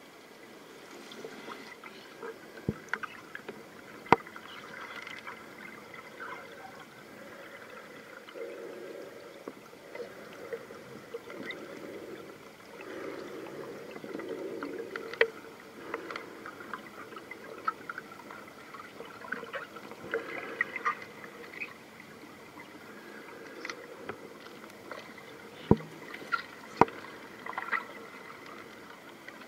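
Muffled, gurgling water noise picked up by a camera held underwater in a pond, with about five sharp knocks scattered through it, two close together near the end.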